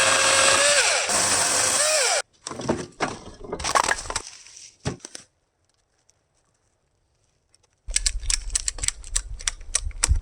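Small electric chainsaw motor whining as it cuts wood, its pitch dipping twice under load, followed by cracking and breaking wood. Near the end come a quick series of clicks and knocks.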